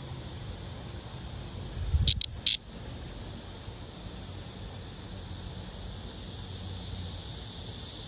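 A male blackish cicada (Cryptotympana atrata) gives three short, harsh buzzing bursts about two seconds in, with a low rustle of handling, as it is held clasped to a female: the brief squawk a male gives when disturbed. A steady high hiss runs underneath.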